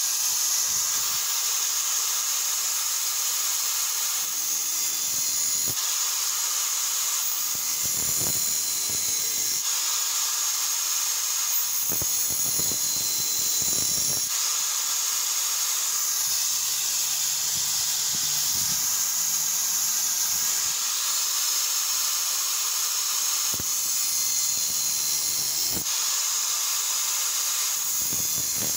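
Makita angle grinder running, its thin cut-off wheel grinding into the steel of an axe head clamped in a vise: a steady, high hissing whine.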